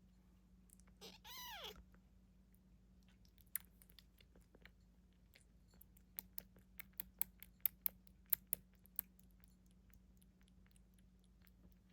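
A cat gives one short meow that falls in pitch, followed by a run of sharp crunching clicks, thickest between about six and nine seconds in, of a cat chewing crunchy food.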